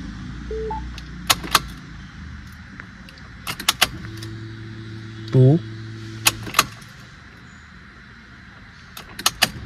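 Ignition key of a Tata Punch being switched on and off repeatedly, with sharp key clicks and the key ring jangling, cycled to reset the engine check light. Between about 4 and 6.5 s in, while the ignition is on, a steady hum sounds, with a short rising whine partway through; both stop when the key is turned off.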